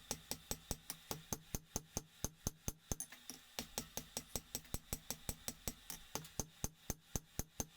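Hammer striking steel on an anvil in a quick, steady rhythm of about five blows a second, each blow ringing briefly.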